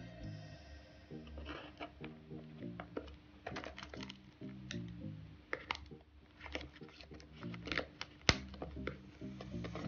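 Background music with a stepping low melody, over irregular sharp clicks and scratches of a pocketknife blade slitting the plastic seal on a cardboard box. The sharpest click comes about eight seconds in.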